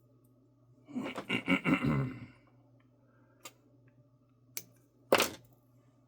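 Tools or parts being handled on a workbench: a clatter of quick knocks lasting about a second, then a few light clicks and a sharper knock near the end, over a steady low hum.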